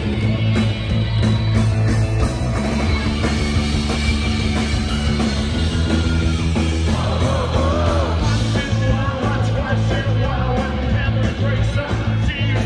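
Rock band playing live through a loud amplified PA: drums, bass and electric guitar. A singer's voice comes in about seven seconds in.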